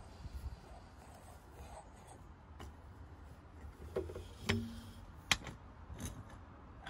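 Handling noises from a plastic fluid-extraction syringe and its tube being drawn out of the transfer box fill hole: low rubbing, then a few short knocks and clicks in the second half, the sharpest a little after five seconds.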